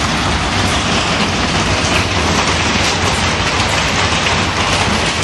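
Hail and heavy rain pelting down onto paving and grass: a dense, steady rattle of hailstones.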